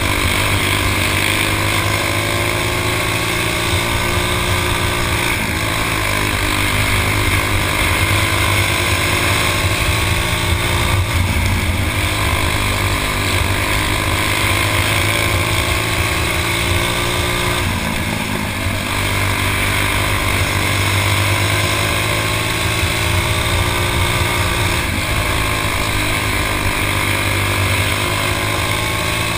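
Stock four-stroke kart engine running hard, heard from on board: its pitch climbs steadily down each straight and drops sharply at each turn, about every six or seven seconds, four times in all.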